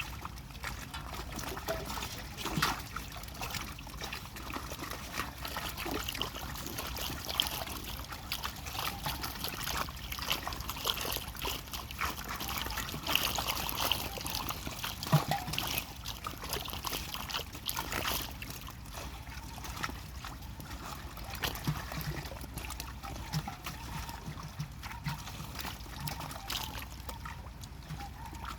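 Water trickling and splashing, with many small irregular splashes and knocks throughout, typical of water running off and being stirred while net fishing in a pond.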